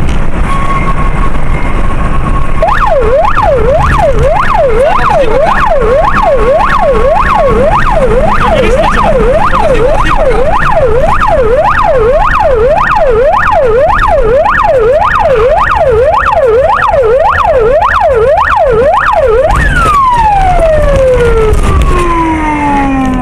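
Police patrol car siren in a fast yelp, rising and falling about twice a second, then winding down in a long falling glide near the end. Under it runs the steady engine and road noise of the pursuing patrol car.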